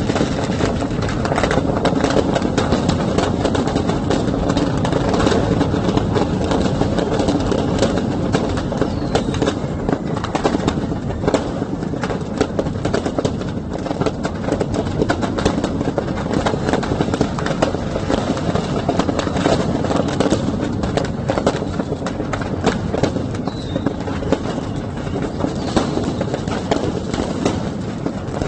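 Firecrackers going off in a shop fire, crackling and popping rapidly and without a break over a steady, loud din.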